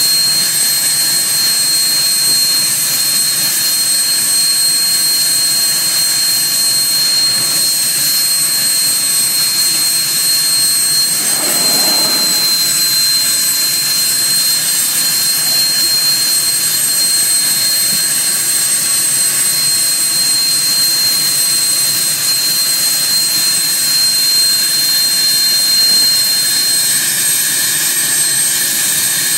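Learjet 25's General Electric CJ610 turbojet running steadily on the ground, a loud even rush of jet noise with a steady high-pitched whine over it.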